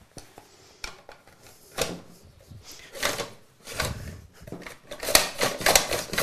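Raw new carrots being grated by hand across a grater blade: a series of scraping strokes, about one a second, coming faster and louder near the end.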